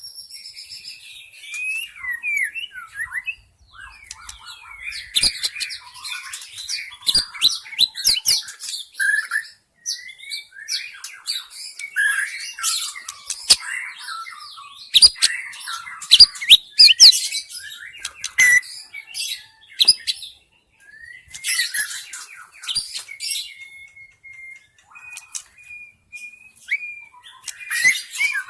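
White-rumped shama singing: a fast, varied song of whistles, trills and sharp clicks, with a few short held whistled notes near the end.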